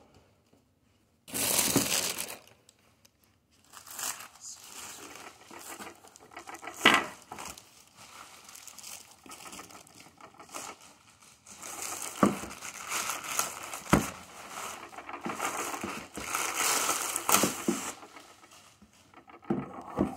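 Clear plastic packaging film crinkling and rustling in irregular bursts as it is handled and pulled, with a few sharp knocks in between.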